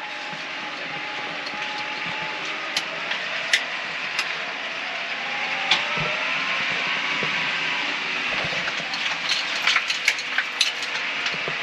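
Tractor running as it drives into a field towing a single rotor rake, its engine note drifting slightly up and down, with scattered knocks and rattles.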